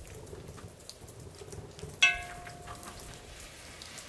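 Low crackling patter of liver and vegetables cooking in the pot. About two seconds in comes a sharp metallic clang that rings on for about a second.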